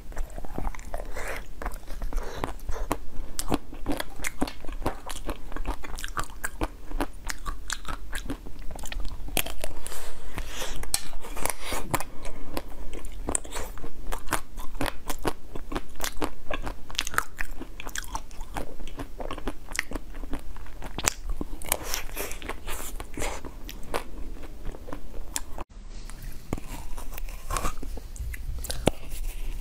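Close-miked biting and chewing of frozen food: dense, crunchy cracking of ice between the teeth, several sharp cracks a second. A momentary dropout comes near the end, then the crunching goes on.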